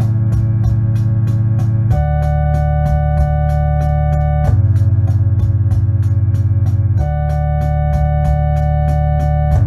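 Electone electronic organ playing slow sustained chords that change about every two and a half seconds over a steady bass line, with a ticking beat about three times a second.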